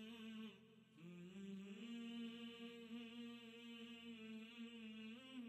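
Background music: a wordless hummed vocal melody with long held notes and slow bends in pitch.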